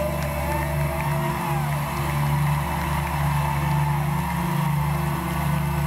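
Live band playing the slow ending of an R&B ballad, heard from the audience in an arena: steady low sustained chords with a voice gliding up and down above them.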